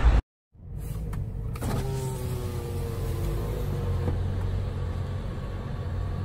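A car's electric window motor whines as the side window lowers, over a steady low engine hum. The sound starts after a brief dropout and the whine fades out about halfway through.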